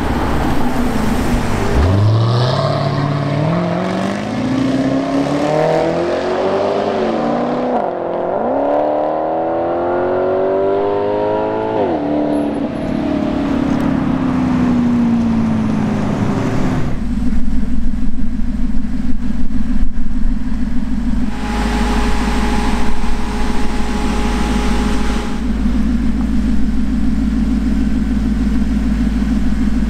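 Maserati GranTurismo MC Stradale's 4.7-litre V8 accelerating hard, the engine note climbing, dropping briefly at a gear change about eight seconds in, climbing again, then falling away as the car pulls off. From about halfway through, a V8 idles with a steady low burble.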